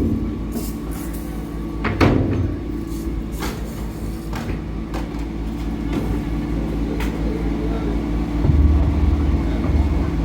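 A vehicle engine running steadily, with several sharp knocks and clanks, the loudest about two seconds in, and a deeper rumble rising near the end.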